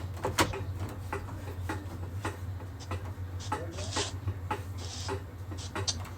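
Footsteps, knocks and plastic handling noise as a smoke detector is carried over and fitted back onto its mount, with two short scraping rustles about four and five seconds in. A steady low hum runs underneath.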